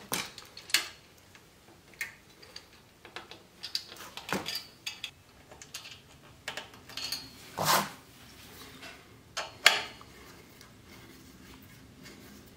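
Scattered small metallic clicks and clinks as a bolt and bent washer are fitted and threaded by hand into the steel tube frame of a miter saw stand, with two louder clinks in the second half.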